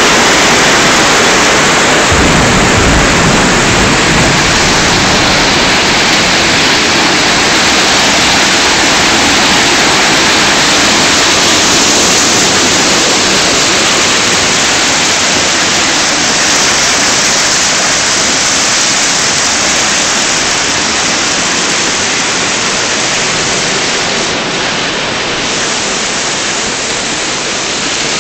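Hailstorm: hail and rain pelting down hard on the ground, plants and surfaces in a dense, steady roar of hiss, easing slightly toward the end. A brief low rumble comes about three seconds in.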